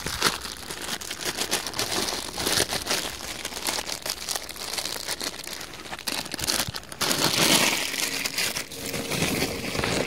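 Plastic packets and a plastic bag crinkling and crackling as they are handled, torn open and emptied by hand.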